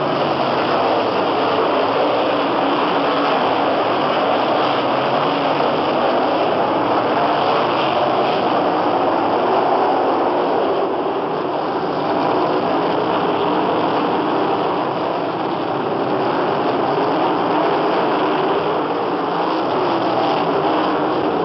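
Several non-winged sprint cars' V8 engines running hard around a dirt oval, blending into a dense, steady drone that eases slightly about two-thirds of the way through.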